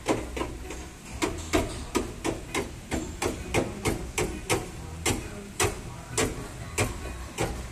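Steady hammering: sharp blows, about three a second, with a brief pause about a second in, over a low hum.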